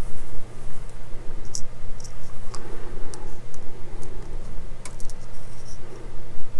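Scattered small clicks and taps of plastic model-kit parts, tiny screws and a small screwdriver being handled on a desk, with some light rustling, over a steady low hum.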